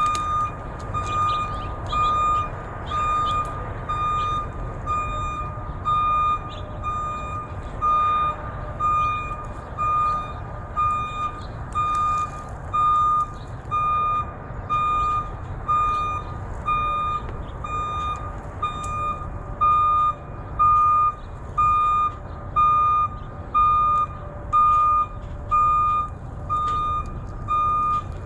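Vehicle reversing alarm beeping, a single high tone about once a second, over the low rumble of a running engine.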